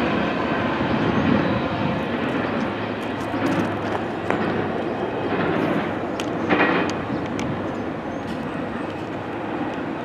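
Norfolk Southern intermodal freight train's double-stack container cars rolling past: a steady rumble of wheels on rail with scattered sharp clicks, easing off slightly over the seconds, and a brief louder sound about six and a half seconds in.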